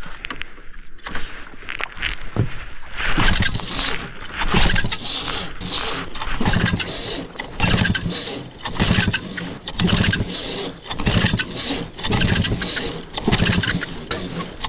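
Paramotor's two-stroke engine being pull-started over and over with its recoil starter, about one pull a second, turning over without catching.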